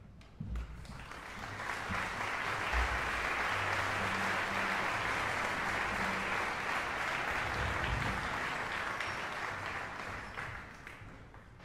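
Audience applauding in a large hall, building up over the first two seconds, holding steady, and dying away near the end.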